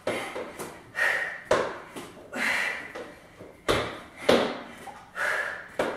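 Sneakers landing on a wooden floor as feet are jumped in and out from a plank, with a hard breath pushed out on the jumps, roughly once or twice a second.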